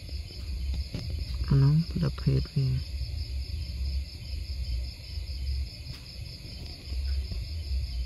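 Crickets trilling steadily in a continuous high chorus, over a low rumble. A short voice cuts in briefly about a second and a half in.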